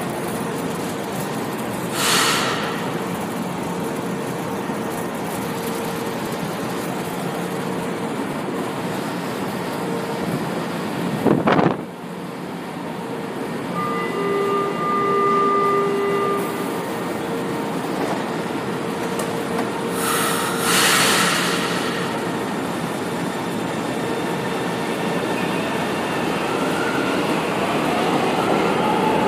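São Paulo Metro Line 1 train running through an underground station, a steady rumble with an even motor whine and short bursts of hiss about two seconds in and again about twenty seconds in. There is a sudden loud knock just before halfway, and near the end a rising whine as another train comes in.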